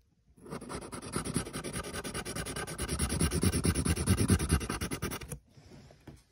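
Black Sharpie permanent marker scribbling hard and fast back and forth on paper, a rapid run of rubbing strokes that stops abruptly about five seconds in.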